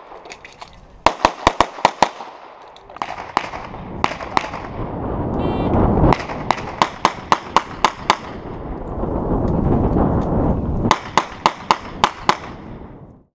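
Four rapid strings of handgun shots, each a quick run of several sharp cracks, with pauses between them. In the pauses a rushing noise swells and fades twice.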